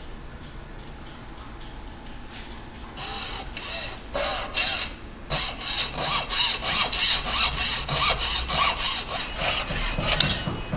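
Fine-tooth hacksaw cutting through Teflon-lined braided stainless-steel hose clamped in a bench vise. A few separate strokes come about three seconds in, then steady, rapid back-and-forth sawing runs until near the end.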